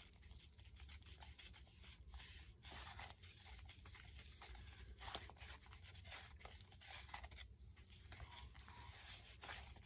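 Faint, irregular scraping and swishing of a small stick stirring wet Satanite refractory mix in a cup.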